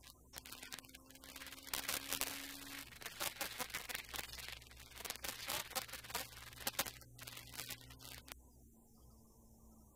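Cabin noise of a rally car at speed in a high gear: a steady low hum with dense, irregular crackling and clicking, busiest in the middle and thinning out near the end.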